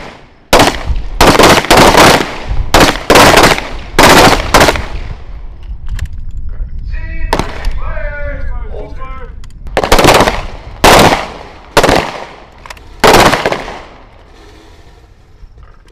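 M18 service pistols (9mm) firing on a range: a fast, irregular run of about ten shots in the first five seconds, then a pause, then four or five more shots.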